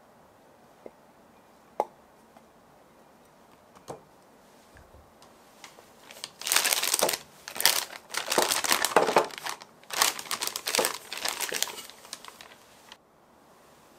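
Crinkly wrapping being handled, with a few light clicks first. About six seconds in, a run of crinkling starts in uneven bursts and stops suddenly near the end.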